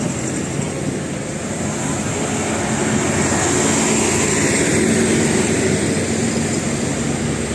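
A passing road vehicle's engine and tyre noise, swelling to a peak about halfway through and then easing off; no horn sounds.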